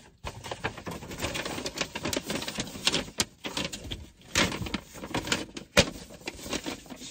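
A large paper sheet rustling and crinkling as it is handled and folded up, with many quick crackles and a few sharper snaps.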